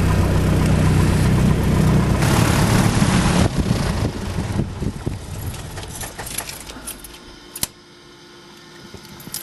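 Light aircraft's piston engine idling, then shut down about three and a half seconds in, the sound dying away over the next few seconds as the propeller winds down. A single sharp click a few seconds later, from a cockpit switch.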